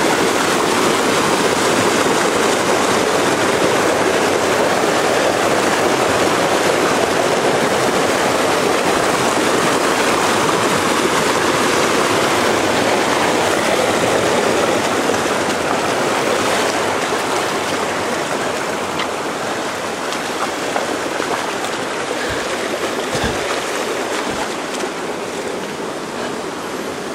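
Mountain stream water rushing steadily over rocks, a dense even rush that eases slightly partway through.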